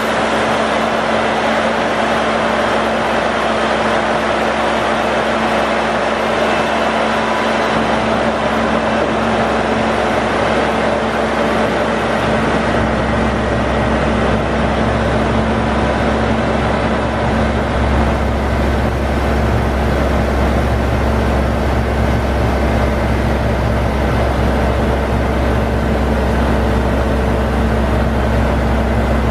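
Caterpillar 3306C six-cylinder diesel engine of a crane truck running steadily at a constant speed. The deep rumble gets stronger in steps about a quarter of the way in and again past halfway.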